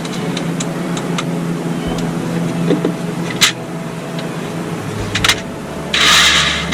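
Light clicks and taps of autopilot parts being handled, over a steady mechanical hum. A loud rushing noise sets in near the end.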